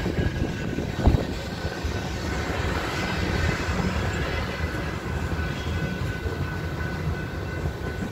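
Freight train tank cars rolling past on the rails, with a sharp knock about a second in, the rumble easing off as the end of the train goes by.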